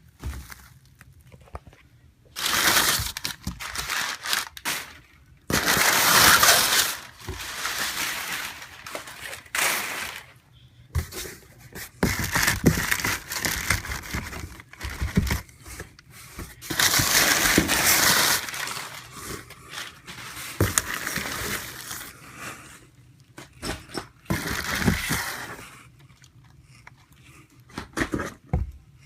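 Packing paper being pulled out of a cardboard box and crumpled, in bursts of crinkling with short pauses between.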